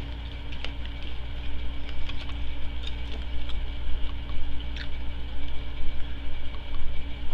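A person drinking from a plastic bottle close to the microphone, with gulps, swallows and small mouth clicks, over a steady low hum.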